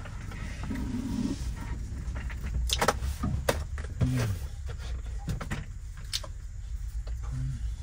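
Clay teacups and lids being set down and moved about on a table, a handful of light knocks and clicks about three seconds in and once more near the end, over a steady low hum.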